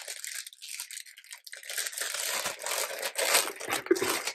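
Clear plastic packaging bags crinkling and crackling as they are handled and unpacked, in irregular bursts that get busier after the first second or so.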